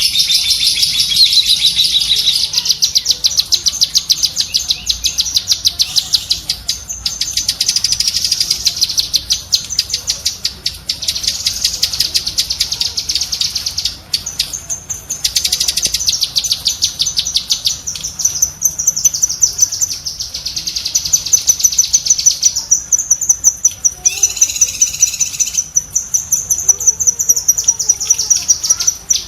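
Cucak kinoi songbird giving its rapid chattering 'tembakan' call: long strings of fast, sharp, high-pitched repeated notes, broken by a few brief pauses.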